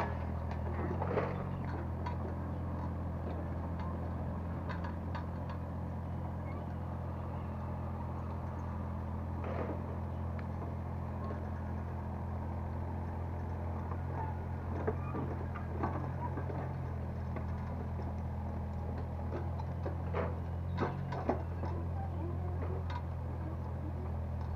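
Excavator's engine running steadily, with scattered knocks of the bucket working soil and rubble.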